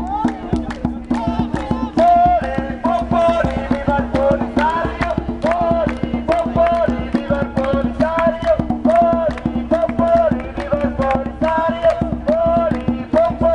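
Traditional Sahrawi-style music: a hand drum beaten in a quick, steady rhythm under high voices singing a short phrase over and over.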